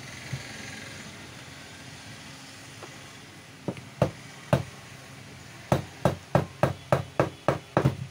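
A wooden block knocking against a marble cutter's motor housing to drive out the field coil. A few separate knocks come first, then a quick run of about eight, roughly three a second.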